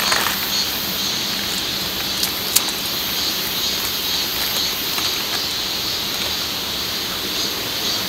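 A pot of ramyeon boiling hard on a Soto WindMaster gas canister stove: a steady hiss of the burner and bubbling broth, with a sharp click about two and a half seconds in.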